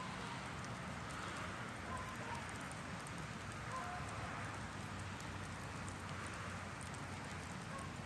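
Outdoor wood bonfire burned down to glowing embers and low flames, crackling softly over a steady hiss.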